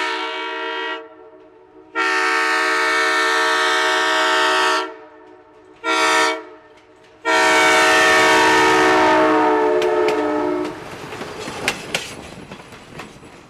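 Budd RDC's air horn sounding the grade-crossing signal: the tail of a blast, then long, short, long, with the pitch of the last blast dropping as the car passes. Then its wheels clatter and click over the rail joints as it goes by.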